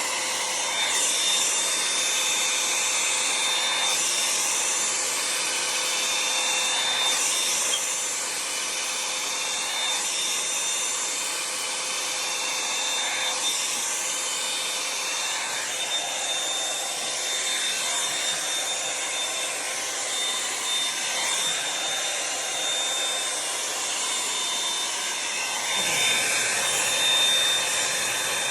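Revlon One-Step hair dryer brush running: a steady rush of blown air with a thin high whine, its level wavering slightly. It switches off at the very end.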